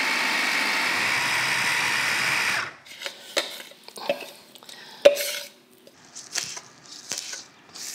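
Electric push-top mini chopper running steadily as it minces basil, garlic and Gruyère cheese, stopping abruptly a little under three seconds in. Scattered clicks and knocks of kitchen utensils follow: a spoon against a ceramic bowl and a knife chopping on a wooden board.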